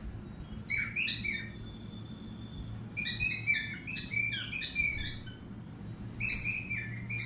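Pet cockatiel singing: three bursts of quick chirping whistles, the middle one the longest.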